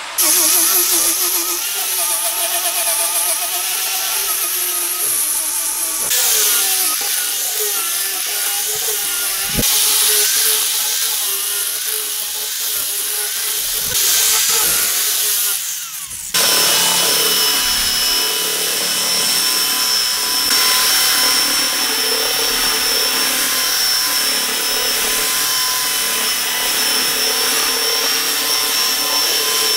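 Electric power tools working a wooden slab, in several short edited takes: an angle grinder fitted with a sanding disc runs over the wood, and from about halfway through a handheld power tool runs steadily with a high, even whine.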